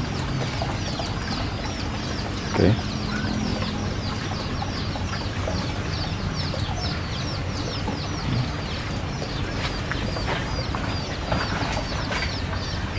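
A dense chorus of bird chirps, short falling peeps repeating several times a second, over a steady low hum, with a single knock about two and a half seconds in.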